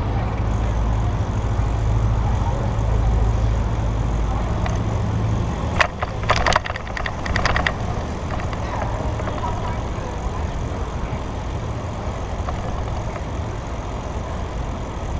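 Riding a bicycle along a city street: a steady low rumble of wind and road under the noise of surrounding traffic, with a brief run of sharp clicks and rattles about six seconds in.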